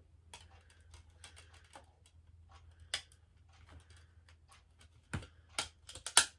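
A plastic CD case being handled and opened by hand: a string of light clicks and taps, with a louder cluster of sharp clicks about five seconds in.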